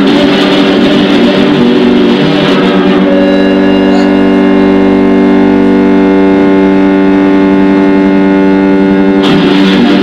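Loud free-improvised noise music on amplified prepared guitar and bass guitar. A dense, noisy texture settles about three seconds in into a held drone of steady tones, which breaks abruptly back into the dense noise near the end.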